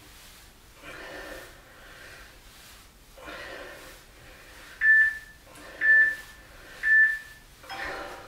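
A man breathing hard from exertion, a breath about every two seconds. About five seconds in come three short, high beeps, a second apart and the loudest thing here: an interval timer counting down the end of the exercise round.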